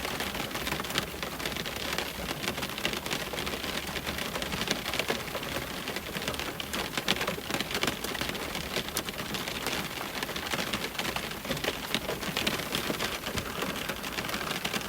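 Rain hitting window glass: a steady hiss of rain with many fine, quick drop ticks throughout.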